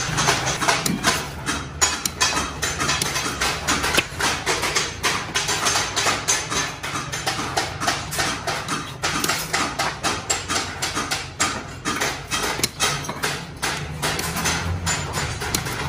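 Large hand shears cutting thin sheet metal: a rapid, continuous run of sharp metallic snips and crunches as the blades close through the sheet.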